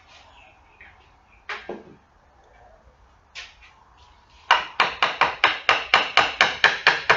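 Hammer blows on a wooden lamp-stand part: two knocks, a single knock, then a steady run of about a dozen sharp strikes, roughly four a second, knocking a glued part back off.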